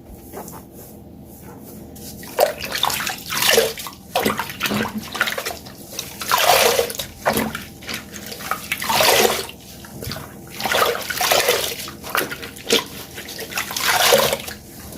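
Water-soaked sponges squeezed over and over, water gushing and splashing out in repeated surges about every two seconds, after a quieter first two seconds.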